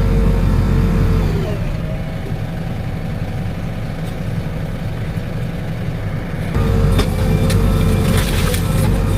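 Heavy diesel engine of a JCB demolition machine running under load, with a steady hydraulic whine that dips in pitch about a second and a half in, then a quieter stretch before the engine sound steps back up near the end. A few sharp knocks near the end.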